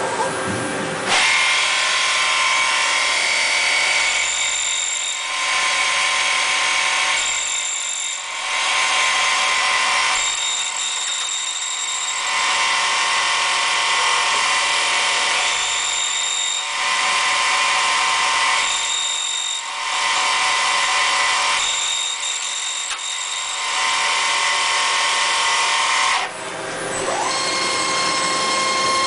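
SMART CNC lathe turning a brass part: a steady high spindle whine with cutting noise that swells and eases about every three seconds. Near the end the sound drops briefly and the whine rises again as the spindle spins back up.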